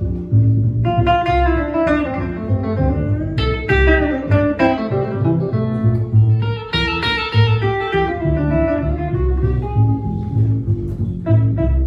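Live instrumental music: an electric guitar playing a run of picked notes over an upright double bass plucking the low line.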